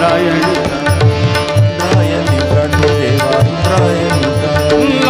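Tabla and harmonium playing an instrumental passage of a Marathi devotional abhang, the tabla strokes steady and prominent under held harmonium notes.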